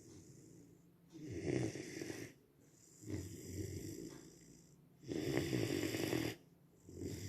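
Rhodesian Ridgeback puppy snoring in its sleep, in a slow, regular rhythm of breaths about every two seconds, louder and softer in turn.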